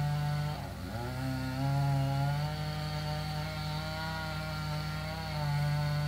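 Chainsaw running at high throttle, cutting into the base of a dead maple trunk; its engine speed dips briefly about a second in and picks back up.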